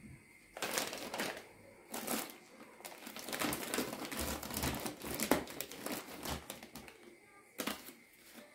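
Irregular rustling and crinkling with many sharp clicks and taps, as of things being handled at close range.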